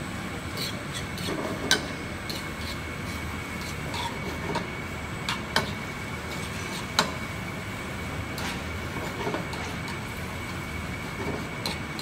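Vegetables being stirred in a frying pan on a gas range: a spatula clinks and scrapes against the pan a few times, with sharp clicks about 2, 5.5 and 7 seconds in, over a steady kitchen roar.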